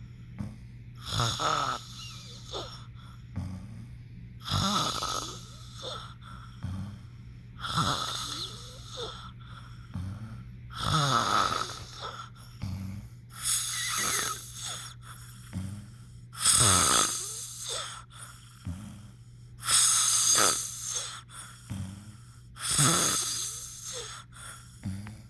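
Snoring, one snore about every three seconds, the snores growing louder after the first few.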